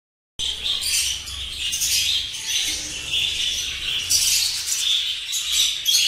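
A flock of budgerigars chattering and chirping all at once, a dense, continuous warble of overlapping calls. It starts abruptly just under half a second in, over a faint low hum.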